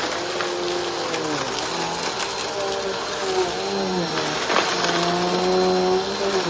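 Vacuum cleaner running on a rug, its motor whine repeatedly rising and falling in pitch as the load changes, with a few sharp ticks of crumbs being sucked up.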